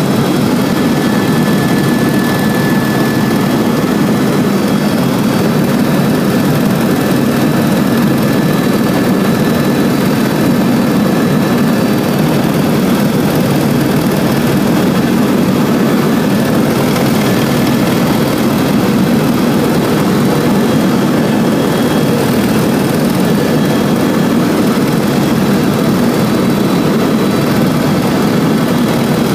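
Helicopter in flight: the steady, loud drone of its turbine engine and rotor, with a faint high whine running over it.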